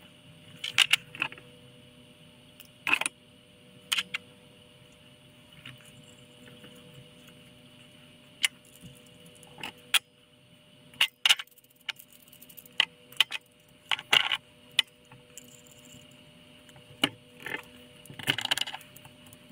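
Small metal pipe fittings clicking and clinking as they are handled and set down on a tabletop: irregular sharp clicks, some in quick clusters, with a longer rattle near the end.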